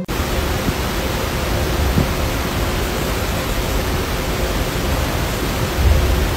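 Loud, steady hiss-like noise spread evenly from low to high pitches, starting abruptly, with a low rumble swelling briefly near the end.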